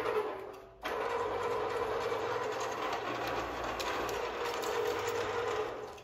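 Electric wire stripping machine running under power, its geared motor giving a steady whine while it strips a foam-insulated filter (coaxial) cable. The sound drops out for a moment under a second in, then carries on steadily with a few faint ticks.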